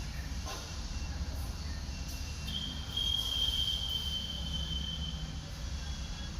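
DEF (AdBlue) pump of a Mahindra Jeeto BS6 running under a diagnostic backflow pump test: a steady low hum, with a high whine that comes in about two and a half seconds in and holds for about three seconds.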